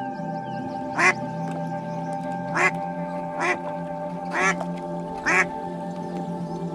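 Duck quacking five times, single short quacks about a second apart, over soft ambient background music with a steady drone.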